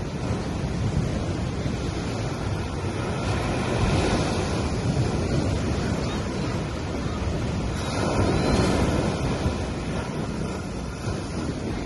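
Small sea waves breaking and washing up on a sandy beach, a continuous wash that swells twice, about four and eight seconds in.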